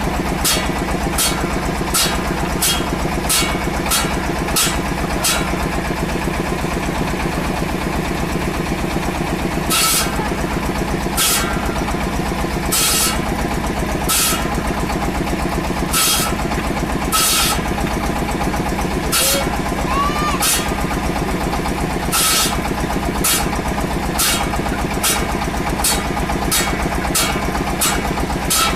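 A machine's engine running steadily, overlaid by short, sharp high-pitched noises. These come about twice a second for the first few seconds, then every second or two.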